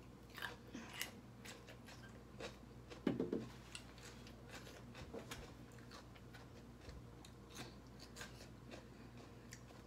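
A person chewing with the mouth close to the microphone, making faint wet clicks and smacks scattered throughout, with one short low hum about three seconds in.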